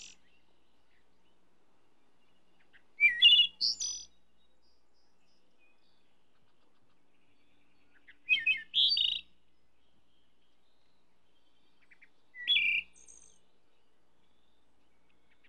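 Wood thrush singing: three separate short song phrases, each about a second long and a few seconds apart, each climbing from lower notes to a higher ending.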